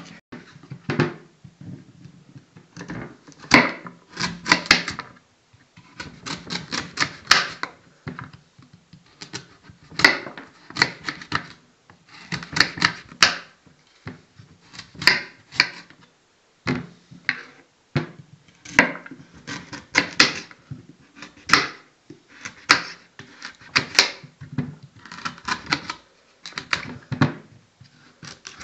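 Kitchen knife cutting raw pumpkin and knocking against a wooden cutting board as the rind is pared off: quick clusters of clicks and scrapes every second or two, with short pauses between them.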